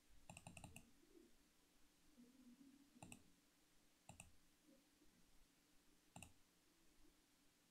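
Faint computer mouse button clicks: a quick run of several clicks in the first second, then single clicks about three, four and six seconds in, each a short press-and-release.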